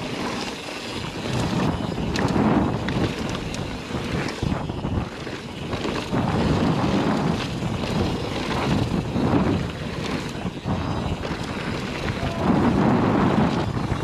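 YT Tues 29 downhill mountain bike ridden fast down a loose dirt-and-gravel trail: tyres rolling and skittering over gravel, the bike rattling and knocking over bumps, with wind on the microphone.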